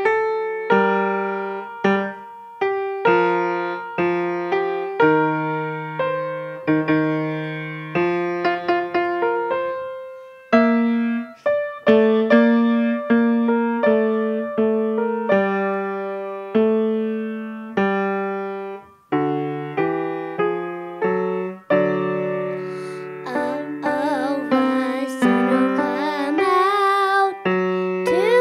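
Acoustic piano played solo, melody over chords and a bass line, with a short break about two thirds through. Near the end a child's voice comes in, singing with a wavering pitch over the piano.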